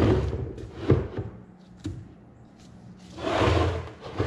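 Blue plastic-cased CALB LiFePO4 prismatic battery cells being knocked and slid by hand across an OSB tabletop. There are two sharp knocks, one at the start and one about a second in, then a scraping rub a little after three seconds.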